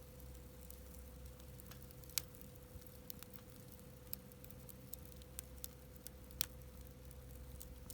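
Wood campfire crackling: irregular small pops and snaps, a few louder ones about two, four and six and a half seconds in, over a faint steady hum.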